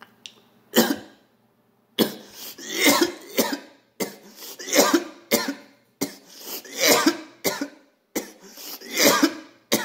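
A man coughing repeatedly on the smoke of a hit of shatter from a pipe: one sharp cough about a second in, then four bouts of several coughs each, about two seconds apart.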